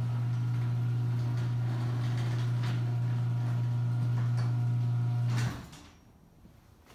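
LiftMaster 8365 garage door opener motor running with a steady hum as it lowers a Wayne-Dalton 8500 sectional door, with occasional light clicks from the door moving down its tracks. The motor cuts off suddenly about five and a half seconds in as the door reaches the floor.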